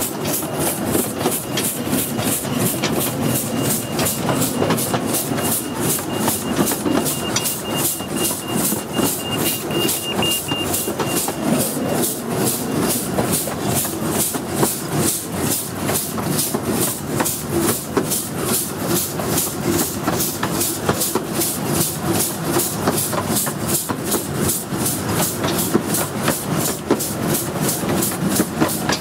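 15-inch gauge miniature steam locomotive working along the track, chuffing in an even beat of about three a second, with steam hissing from its open cylinder drain cocks.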